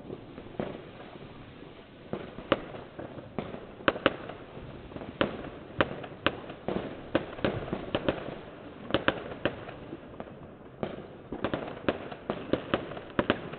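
Fireworks and firecrackers going off: a dozen or more sharp bangs at irregular intervals, coming in a denser run of quick pops about two thirds of the way through.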